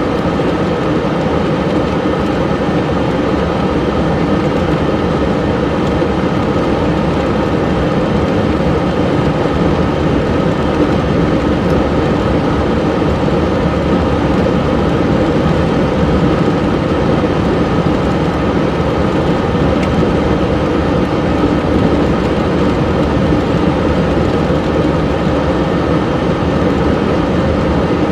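Steady car cabin noise while driving on a snow-covered road: engine and tyre noise heard from inside the car, even and unbroken.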